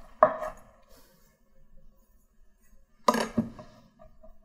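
Kitchen knife and wooden cutting board being handled: two sharp knocks with a short ring, one right at the start and a louder one about three seconds in, as the chef's knife is brought down and laid on the board.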